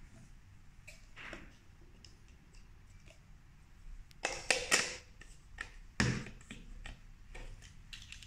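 Hard plastic parts of an INSE N6 cordless vacuum's dust cup and filters knocking and clicking against each other as they are handled and fitted together. A few light clicks, a cluster of louder knocks about four to five seconds in, and another knock about six seconds in.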